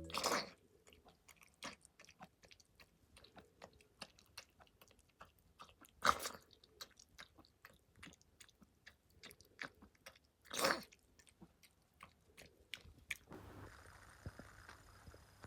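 A dog chewing: irregular small wet clicks with three louder crunches, one at the start, one about six seconds in and one near eleven seconds. The chewing stops near the end and a faint steady hiss is left.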